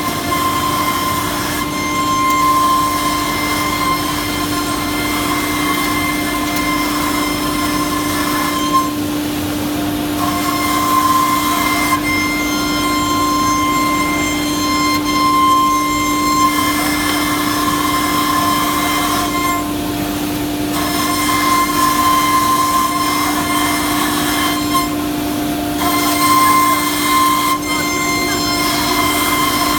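FINECNC FC1325-12 ATC CNC router running, its spindle giving a steady whine. A higher whine cuts out for about a second three times.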